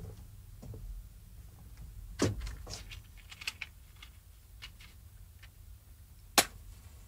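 Faint low hum with scattered small clicks and knocks: a knock a little over two seconds in, a quick run of light clicks after it, and a sharp click about six seconds in, the loudest sound.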